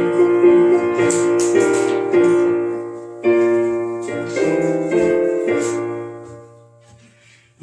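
Piano playing the introduction to a hymn: sustained chords that change about once a second, then die away near the end before the singing comes in.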